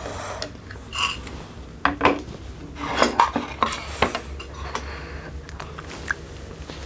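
Eating utensils clinking and scraping against a dish, with several knocks in the first four seconds and only a few light clicks after.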